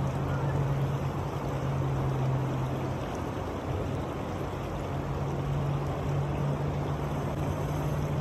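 River water rushing steadily over a shallow, rippling riffle, with a steady low hum underneath.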